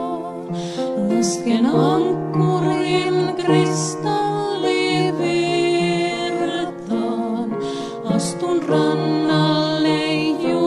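Slow Finnish gospel song, female vocals with vibrato over grand piano accompaniment.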